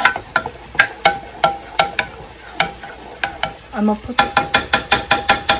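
A spoon stirring gravy in a saucepan, clicking against the side of the pan with short ringing knocks. The knocks are irregular at first, then become a quicker run of about five a second near the end.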